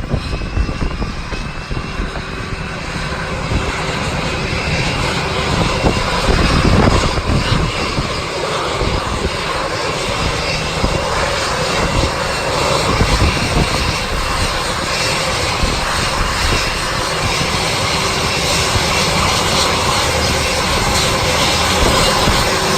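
Jet airliner engines running, a steady noise with a faint high whine that slowly grows louder. Gusty rumbling from wind on the microphone runs underneath.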